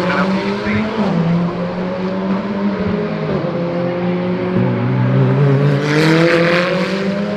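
Several GT4 race car engines running at once, loud, their pitch climbing under acceleration and dropping back at gear changes.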